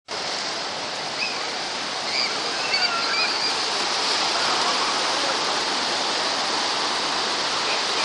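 Heavy surf breaking and seawater pouring over the walls of an ocean rock pool: a steady rushing wash of water.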